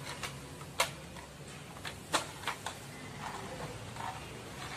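A few sharp clicks and knocks of hard plastic as a large toy dump truck is handled and turned over onto its back.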